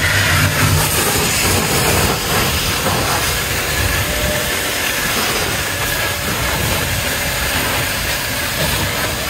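Water jetting in a steady hiss while a solar water heater is flushed clean.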